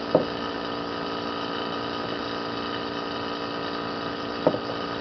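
Small oil vacuum pump running steadily, a constant hum drawing down a vacuum bag. Two brief sharp clicks stand out, just after the start and near the end.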